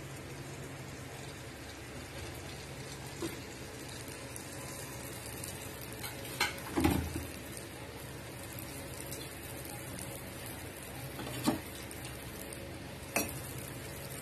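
Athirasam, a rice-flour and jaggery dough disc, deep-frying in hot oil in a steel kadai with a steady sizzle. A few sharp clinks of a utensil on the pan cut through it, the loudest about seven seconds in.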